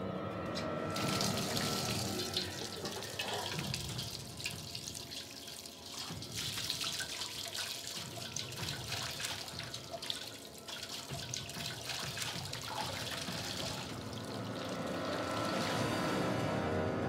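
A water tap opened about a second in and left running at full flow into a sink, a steady rush of water.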